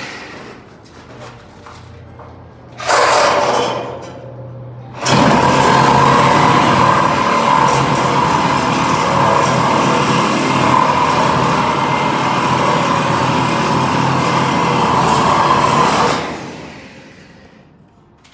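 Angle grinder working on steel: a short burst about three seconds in, then a long steady run of about eleven seconds that winds down near the end.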